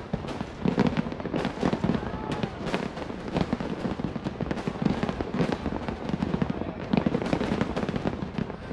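Fireworks display: a rapid, continuous run of bangs and crackling bursts overlapping one another.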